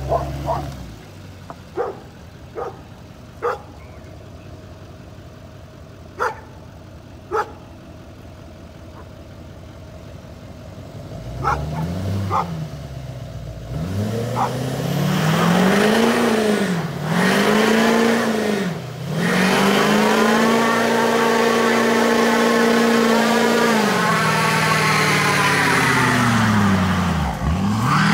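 A dog barks several times. Then, from about eleven seconds in, a pickup truck's engine revs up and down over and over, holds high revs for a few seconds, drops off near the end and climbs again.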